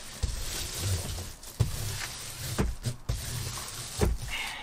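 Reflectix foil-bubble insulation rustling and crinkling under hands pressing and smoothing it flat against a van's sheet-metal wall. A few dull thumps sound as palms press on the panel, about four in all.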